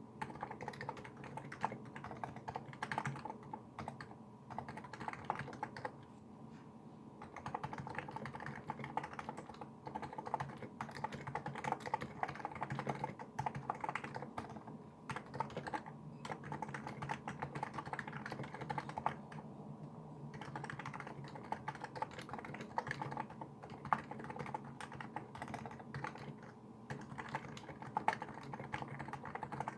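Typing on a Niz Plum Micro84 electro-capacitive keyboard with SA-profile keycaps: a fast, continuous run of keystrokes with a couple of short pauses.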